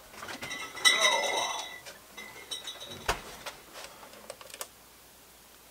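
Dishes being handled on a wooden bar top: a short clinking, ringing sound about a second in, then a sharp click and a few light knocks as a plastic container is handled beside a glass jar mug.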